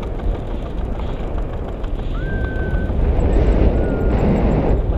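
Wind buffeting an action camera's microphone during a tandem paraglider flight: a heavy, steady low rumble that grows louder in a stronger gust in the second half. Two brief high, steady tones sound in the middle.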